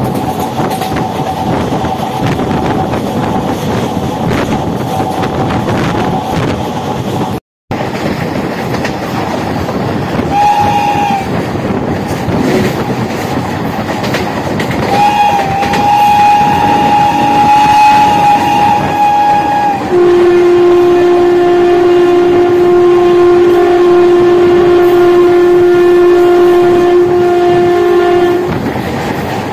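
Electric multiple-unit (MEMU) train running at speed, with steady wind and track noise. A train horn gives a short toot, then a long blast of about five seconds, then goes straight into a lower, louder horn note held for about eight seconds before cutting off.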